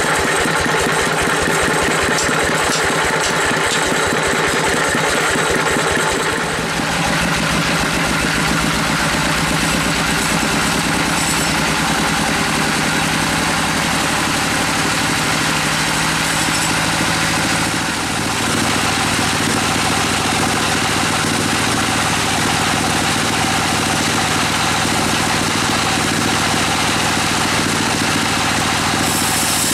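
Large log band sawmill running loudly and continuously as a big log is fed through the blade, a dense mechanical drone. A fast even pulsing in the low end smooths out about six seconds in.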